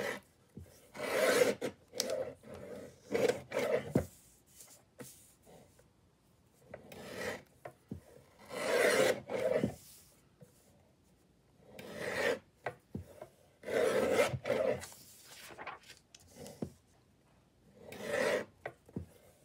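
Sliding paper trimmer cutting sheets of paper: several separate strokes, each about a second long, as the cutting head is run along the rail, with sheets of paper slid across the trimmer's base between cuts.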